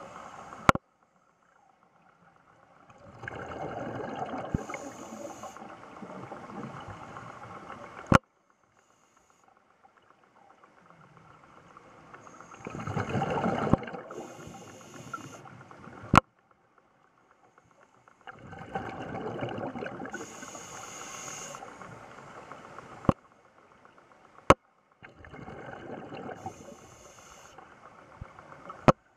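Scuba diver breathing through a regulator underwater: four long bursts of exhaled bubbles gurgling, separated by quiet pauses, with a sharp click at the end of most breaths.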